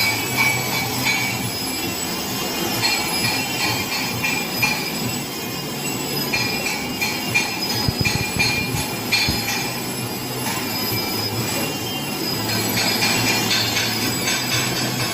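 Electric welding arc burning steadily as a weave bead is laid: a continuous hiss and buzz over a low hum, with a few sharper crackles about eight and nine seconds in.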